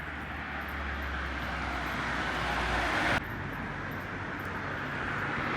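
Steady rushing road noise of a car driving, with a low hum underneath, growing slowly louder; about three seconds in it changes abruptly to a duller, slightly quieter version of the same noise.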